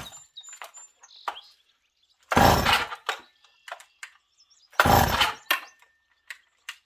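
Stihl 056 Magnum II chainsaw being pull-started twice, unchoked and on fast idle: two short bursts of the recoil rope spinning the high-compression two-stroke engine over, about two and a half seconds apart, without it catching and running.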